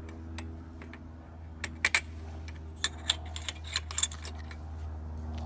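Small metal hardware clicking and clinking as bolts and washers are handled and fitted through a solar panel's aluminium frame to fix a mounting bracket. There is a cluster of sharp clicks from about two to four seconds in, over a steady low hum.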